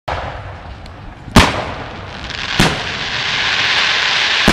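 Aerial firework shells bursting: three sharp bangs, the loudest about a second and a half in, the others near the middle and at the end. A crackling hiss builds through the second half.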